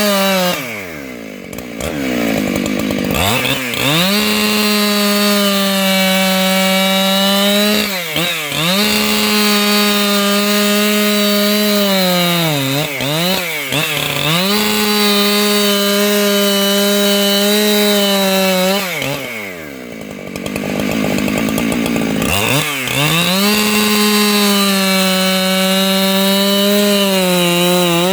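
585XP two-stroke chainsaw ripping through wood at full throttle, its engine note steady under load with brief sags and wobbles as the chain bites. Twice the throttle drops back, the engine note falls away and then revs back up into the cut, about two seconds in and again near twenty seconds.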